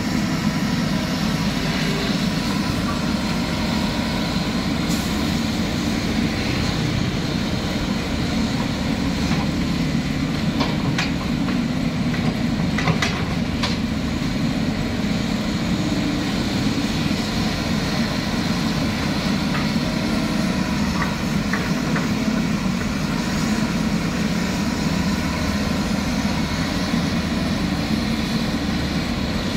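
Diesel engines of a KATO hydraulic excavator and a dump truck running steadily, a continuous low rumble, while the excavator loads mud into the truck; a few short knocks come around the middle.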